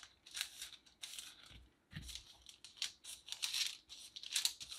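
Air-dry foam clay being peeled away from thin paper around a pressed-in plastic container, the paper rustling and crinkling in soft, irregular short scratches.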